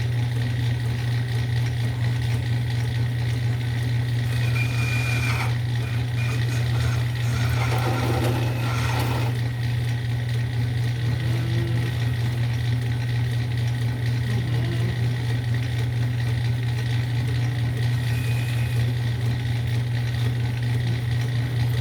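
Lathe motor running with a steady low hum, turning a harmonica slide button, with a couple of short stretches of cutting noise about five and eight to nine seconds in.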